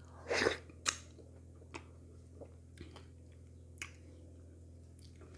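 Close-miked mouth sounds of eating wheat fufu with okra soup by hand. A wet smack comes as a morsel goes into the mouth about half a second in, then a sharp click, then a few soft, sparse chewing clicks over a steady low hum.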